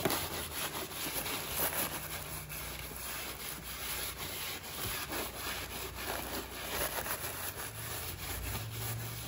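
A cloth rag rubbing across the machined metal friction face of a Sachs clutch pressure plate in repeated wiping strokes, cleaning it with brake cleaner.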